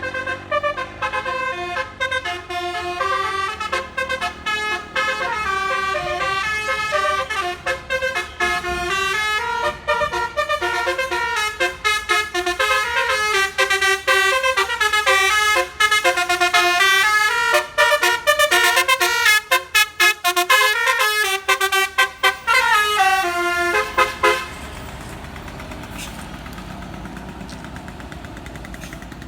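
Bus 'telolet basuri' musical air horn playing a long melody of stepping notes, several pitches sounding together with short breaks between phrases. It cuts off suddenly about 24 seconds in, leaving a lower, steady noise.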